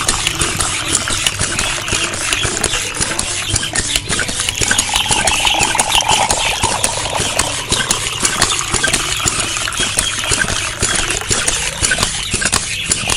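A thin stream of water from a miniature hand pump's tube splashing and trickling into a shallow plastic basin of water: a steady splashing with many small clicks.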